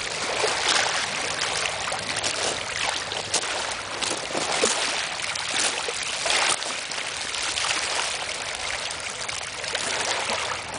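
Small waves lapping and trickling over stones in shallow water at the shore's edge: a steady wash with irregular splashy surges.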